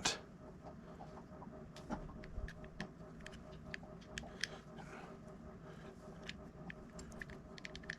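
Faint, scattered clicks and light taps of small metal reel parts being handled and seated during reassembly of a Shimano SpeedMaster saltwater reel, with a quick run of clicks near the end.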